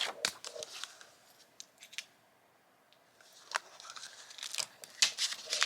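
Handling noise from a CD album's booklet and case: scattered clicks, taps and paper rustles as pages are turned, pausing briefly in the middle and picking up again toward the end.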